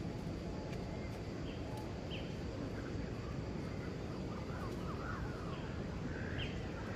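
Outdoor ambience: a steady background hiss with a few short, high chirps and a brief cluster of faint calls around the middle.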